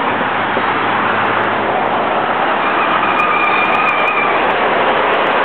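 Road traffic noise: a steady rush of passing vehicles, with a faint high whine for a second or two in the middle.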